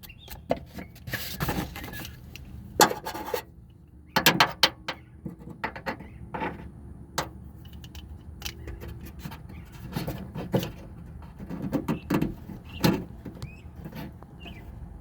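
Irregular clicks, knocks and rubbing of metal and plastic parts as hands work inside a pickup truck's door.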